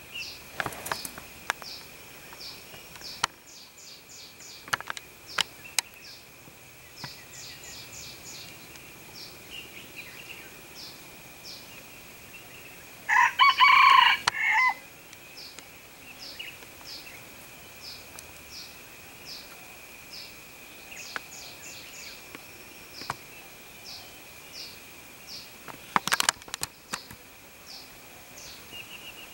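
A rooster crows once, a single crow of about a second and a half, about halfway through. Under it run a steady high insect drone and rows of short high chirps. A few sharp clicks come near the end.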